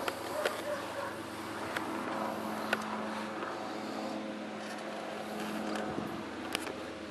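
A steady low mechanical hum, like an engine running somewhere off, with a few sharp clicks and knocks as a puppy noses and bumps against the camera.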